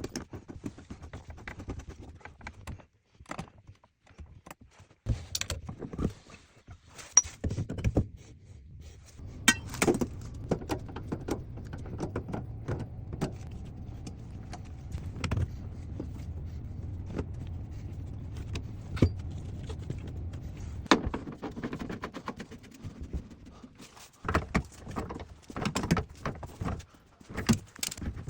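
Irregular metallic clinks, knocks and rattles of tools and fittings being handled during a tankless water heater installation. A steady low hum runs under them from about a third of the way in until near the end.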